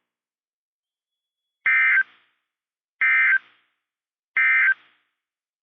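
Three short buzzy bursts of SAME digital data tones, evenly spaced a little over a second apart: the weather radio's end-of-message code closing the severe thunderstorm warning.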